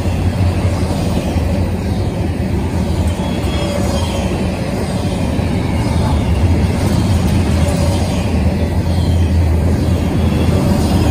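Double-stack intermodal rail cars rolling past: a loud, steady rumble of steel wheels on rail.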